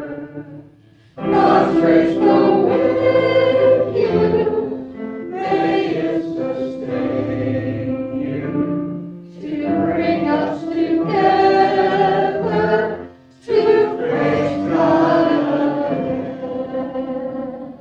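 A congregation of mixed voices singing a song together, in phrases with short pauses about a second in and again near 13 seconds.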